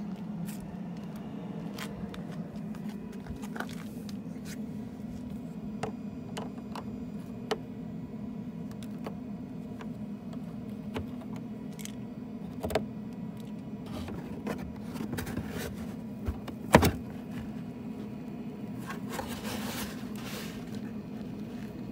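Scattered clicks and scrapes of a hand working behind a car's plastic wheel-well liner to reach the fog light bulb, with one sharp knock about 17 seconds in, over a steady low hum.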